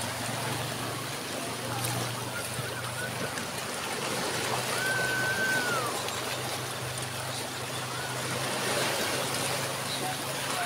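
Shallow sea water washing and trickling over a rocky reef at the shoreline, a steady rushing, with a low hum underneath. Near the middle a brief high tone rises, holds and falls away.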